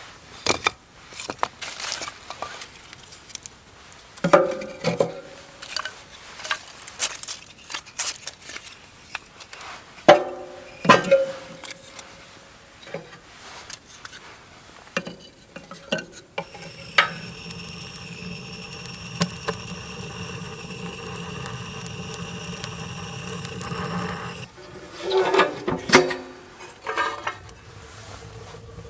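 Metal cookware and utensils clinking, knocking and scraping, several strikes ringing briefly. In the middle a steady, even drone lasts about seven seconds.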